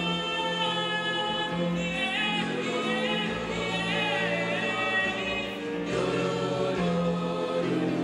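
Mixed choir singing with a female soloist over it. Her voice wavers with vibrato in the middle of the passage.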